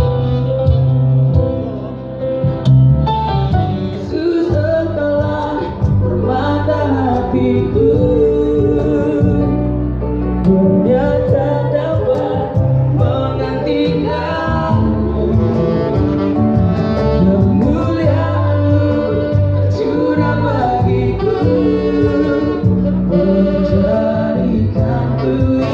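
Live band playing a song, with male and female singers at microphones over the band's backing.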